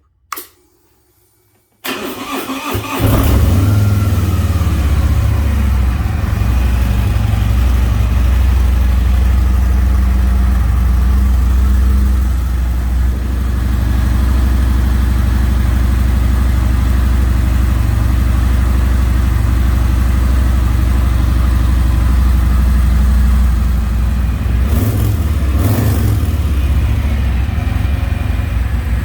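A Harley-Davidson Milwaukee-Eight V-twin on a 2022 Street Glide: a click, then the engine cranks and catches about two seconds in and settles into a steady, deep idle. Near the end the throttle is blipped a few times before it drops back to idle.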